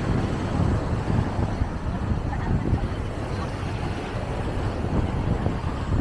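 Wind buffeting the microphone: a low, uneven, gusty rumble.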